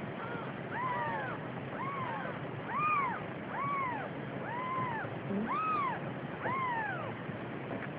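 Newborn kittens mewing over and over, short high calls that each rise and fall, coming about once a second.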